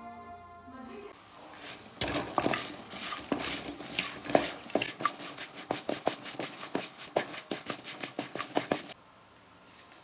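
A metal spatula stirs and scrapes dried red chillies, coriander seeds and garlic as they dry-roast in a metal kadai. It makes quick, irregular clinks and scrapes against the pan with the seeds rattling, and the noise stops abruptly near the end.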